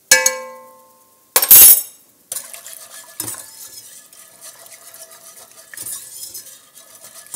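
A metal utensil clinks against a pot with a short ringing tone, then a loud brief clatter. A wire whisk then swishes and scrapes steadily around an enamelled pot of sauce.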